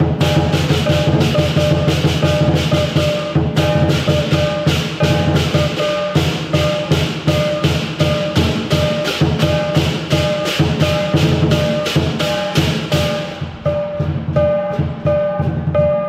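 Lion dance percussion: a large Chinese lion drum beaten in a fast, driving rhythm with crashing hand cymbals, loud and dense. About thirteen seconds in the cymbal crashes drop away and the beat carries on lighter, with clear ringing metallic tones.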